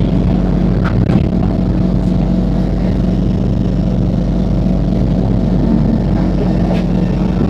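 Steady hum and low drone inside a Singapore MRT train carriage standing at a station, with a faint click about a second in and another near the end.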